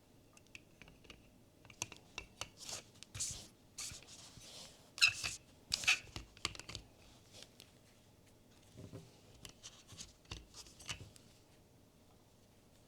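Blind-box packaging being torn open and handled: a few short rips and rustles of wrapping mixed with small clicks, then a run of light clicks and taps near the end.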